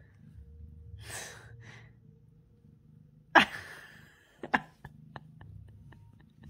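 A single loud sneeze about halfway through, preceded by two short breathy sounds. A sharp click and a few faint clicks follow.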